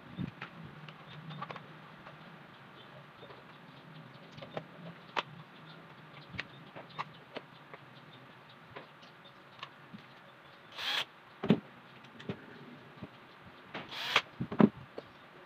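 Scattered clicks and knocks of an electric fan's plastic motor housing being handled and fitted together, with two short bursts of a cordless drill driving screws, the second near the end.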